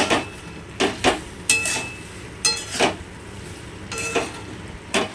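A cooking utensil knocking and scraping against a pan while shredded chicken is stirred into a thick masala, with about eight sharp clinks at irregular intervals, some ringing briefly.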